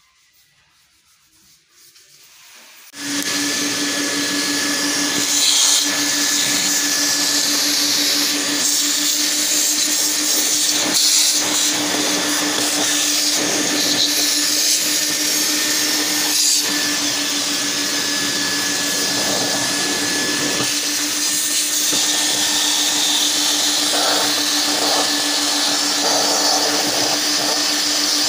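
Vacuum cleaner starts suddenly about three seconds in and runs steadily, a constant hum under a hiss of rushing air, as its crevice nozzle sucks dust and debris out of a window sill track.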